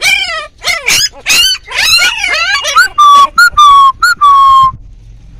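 A litter of very young pit bull puppies whining and yelping in high, wavering cries. About three seconds in come four loud, steady, high-pitched whines.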